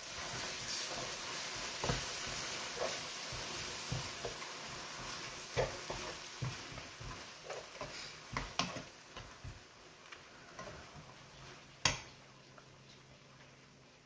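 A plastic slotted spatula stirring and scraping cream through fried onions in a nonstick frying pan, over a sizzling hiss that is strongest in the first few seconds and then dies down. A single sharp knock stands out about twelve seconds in.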